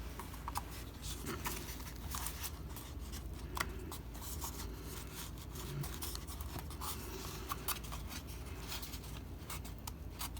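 Hobby knife cutting and scraping foam in short scratchy strokes, with scattered light clicks, over a steady low hum.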